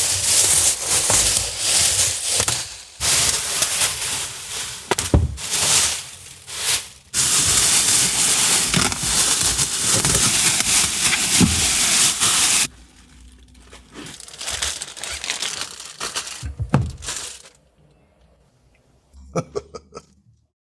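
Protective plastic wrap being peeled and ripped off a new car in long tearing strips, with crinkling and sharp crackles between pulls. It dies down to a few faint ticks near the end.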